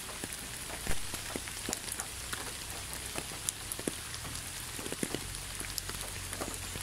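Steady rain falling on a surface, with scattered individual drops ticking and a faint low rumble underneath.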